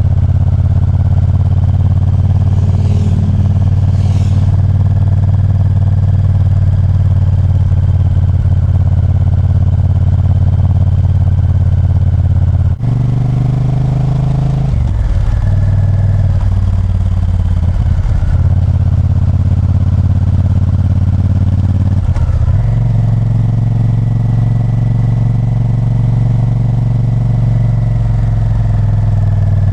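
Honda Varadero 1000's 90-degree V-twin engine running while riding. The engine note breaks off suddenly about 13 seconds in, wavers in pitch for a few seconds, changes again around 22 seconds, then holds steady.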